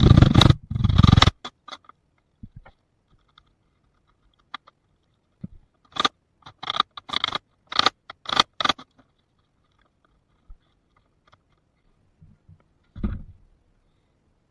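Chisel cutting a mortise in pallet wood by hand: a loud burst of scraping at the start, a quick run of short scrapes and knocks around the middle, and one more near the end.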